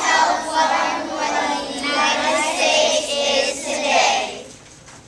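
A group of young children singing together as a choir, their song ending about four seconds in.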